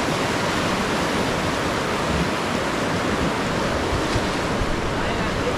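Rushing whitewater of a river rapid around the raft: a loud, steady hiss of moving water.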